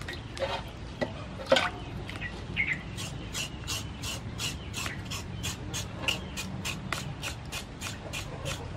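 Hands sloshing a raw pork leg in a basin of water with a few small splashes, then a knife scraping the pork skin in quick, even strokes, about three and a half a second.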